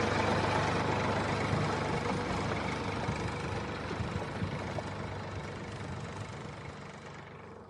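Tractor-type engine running steadily at idle, fading out gradually toward the end.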